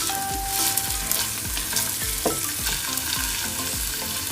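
Chopped onion, garlic and ginger sizzling steadily as they fry in hot oil in a pan.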